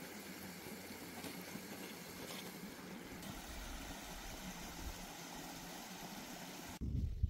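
Steady rushing of a mountain stream. Near the end it cuts off suddenly and a loud low rumble takes over.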